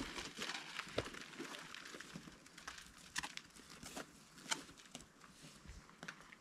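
Irregular scuffs, taps and rustles of a boulderer's shoes and hands on the rock as he mantles over the top of a boulder and stands up, a few sharper taps among them.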